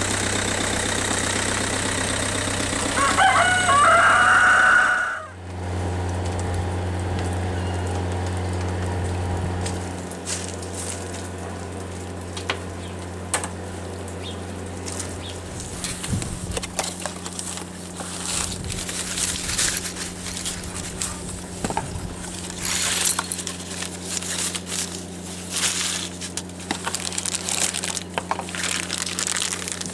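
An engine idles steadily while a rooster crows over it, about three to five seconds in. After an abrupt cut a lower steady hum carries on beneath the crackle and clicking of a plastic bag and cardboard box being handled as a small electric fuel pump is unpacked.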